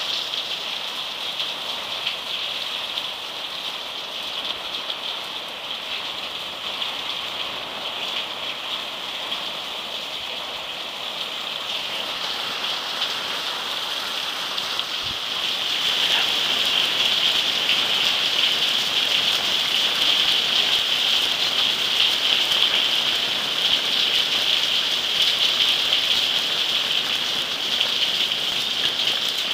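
Torrential rain pouring onto corrugated roofs, a steady dense hiss that grows louder about halfway through.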